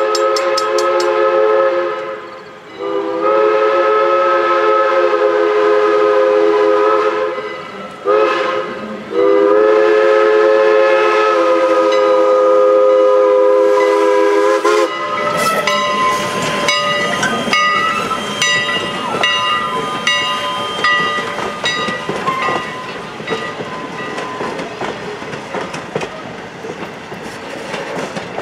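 Steam locomotive chime whistle, several notes sounding together, blowing the grade-crossing signal: two long blasts, a short one and a final long one that stops about halfway through. After it the crossing's RACO mechanical bell rings steadily as the wooden passenger cars roll across the crossing with a clickety-clack.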